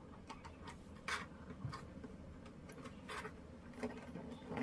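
Faint, irregular clicks and rustles of fingers twisting thin insulated speaker wires together to join them to a ground wire, with louder scrapes about one second in and again around three seconds in.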